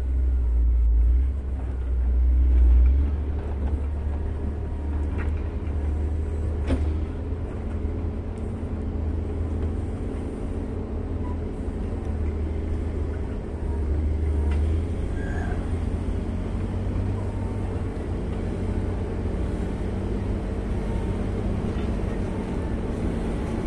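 Caterpillar 140M motor grader's diesel engine running as the machine drives slowly over a rough dirt road, a steady low rumble that swells louder a few times in the first half.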